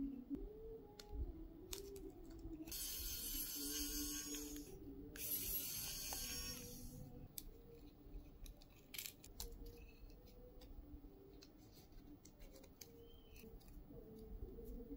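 A plastic pry tool scraping and peeling the lithium-ion battery off its adhesive inside an Apple TV Siri Remote's aluminium shell: two longer scraping stretches a few seconds in, with small clicks and taps of tool and fingers on the casing throughout.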